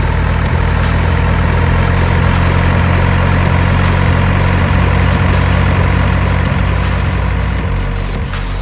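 Large vehicle engine idling steadily, a loud even low rumble that eases off slightly near the end.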